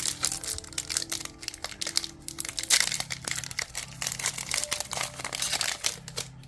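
Foil booster pack of Pokémon cards crinkling as it is torn open and handled: a dense run of crackles, loudest about three seconds in.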